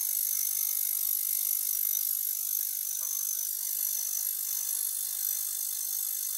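Ultrasonic cleaner running, its bath holding a two-stroke engine cylinder: a steady high-pitched hiss with a faint whine.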